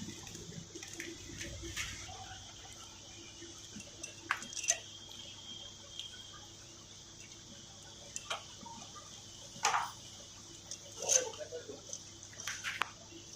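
Scattered light clinks and knocks of metal tools and parts being handled during motorcycle engine assembly, several single strikes a second or more apart, over a steady hiss.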